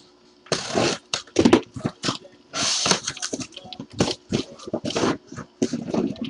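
A sealed cardboard shipping case being ripped open: cardboard and tape tearing in several short bursts, two of them longer, about half a second in and near three seconds, with scraping and knocks of the cardboard between.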